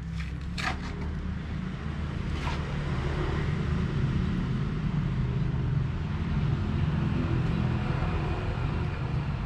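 A steady low motor rumble, like a running engine, grows louder over the first few seconds and then holds; two brief clicks sound within the first few seconds.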